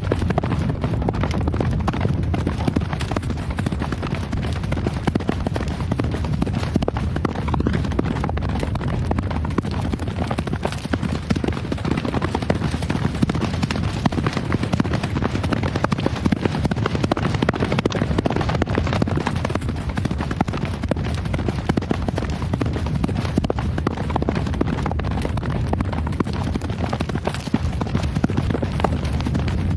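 Horse hooves galloping: a steady, unbroken run of dense hoofbeats.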